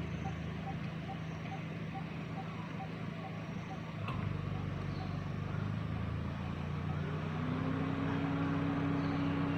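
A steady low engine hum. About seven seconds in, a second higher engine tone comes in, rises slightly and then holds.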